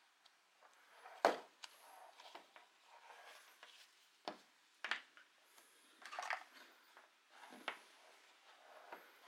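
Handling noise from a plastic LED headlamp and its elastic head strap: a few scattered knocks and clicks with soft rustling between them. The loudest knock comes about a second in.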